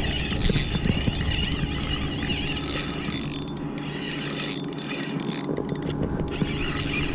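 Fishing reel being cranked: a steady mechanical whir with gear clicking.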